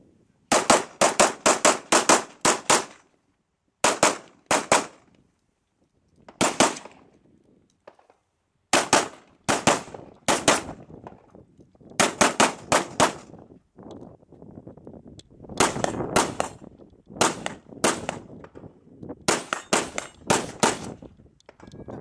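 Semi-automatic rifle fired rapidly in competition: a fast string of about eight shots about half a second in, then a few single shots, then several more quick strings of shots separated by short pauses.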